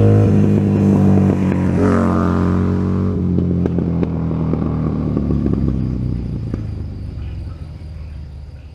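Buell XB9SX's air-cooled V-twin through a Penzl exhaust with its flap open, in a drive-by. It is loud at first, its pitch drops about two seconds in, and it then fades steadily as the bike rides away.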